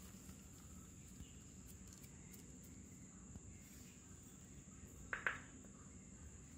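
Faint outdoor background with a steady, high-pitched drone of crickets or similar insects. About five seconds in there are two short, sharp sounds close together.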